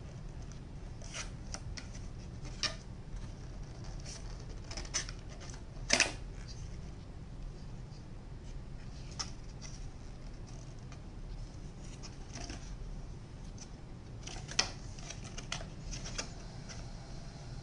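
Scattered clicks and light handling noise of small plastic parts: an action camera in its clear plastic waterproof housing and its accessories being handled on a table. The sharpest clicks come about six seconds in and again about fifteen seconds in, over a steady low hum.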